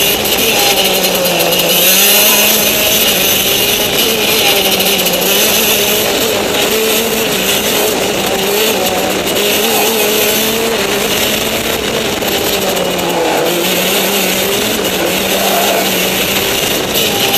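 Racing kart engine running hard on a lap, its pitch rising and falling with the corners and dipping briefly a couple of times, heard from on board over a heavy rush of wind hiss.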